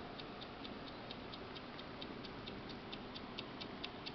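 Mechanical wind-up dial timer ticking steadily and faintly, about four ticks a second, as it counts down.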